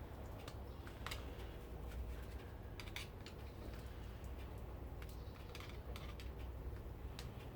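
Irregular light clicks and taps of small metal and plastic parts as a small electric motor's casing is worked apart by hand, over a steady low hum.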